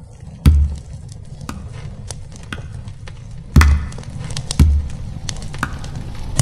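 Campfire crackling over a low rumble, with three deep booming hits: one about half a second in, then two a second apart just past the middle.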